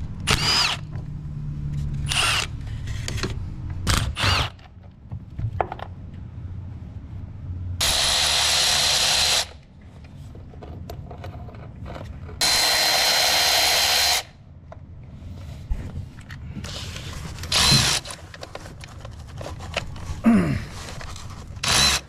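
Cordless electric ratchet running in two bursts of about a second and a half each, with a steady motor whine, spinning off the nut that holds the oil dipstick tube to its stud. Short clicks and knocks of tool handling come between the bursts.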